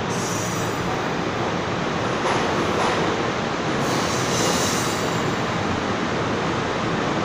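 NJ Transit MultiLevel double-deck commuter coaches rolling past along an underground platform: a steady rumble of steel wheels on rail, echoing in the enclosed station, with a couple of faint clicks over rail joints and a short rise in high-pitched hiss about four seconds in.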